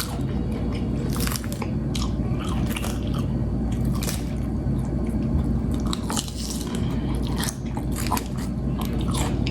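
Close-miked chewing and biting of food, with many short wet mouth clicks and smacks over a steady low hum.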